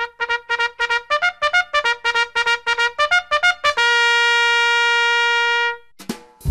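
Intro music: a brass-sounding melody of quick, short notes, about eight a second, that ends on one long held note and then stops.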